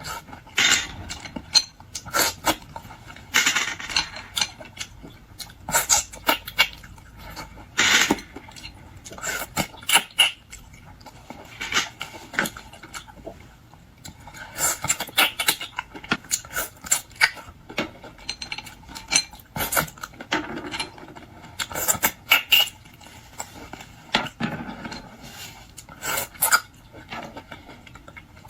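Eating sounds of boiled shrimp and lobster: irregular clusters of sharp clicks, cracks and clinks as shells are broken and peeled and utensils are handled.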